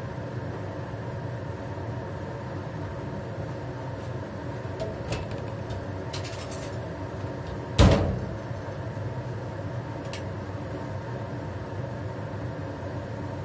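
A single loud knock just under eight seconds in, with a few faint clicks before and after, over a steady low hum.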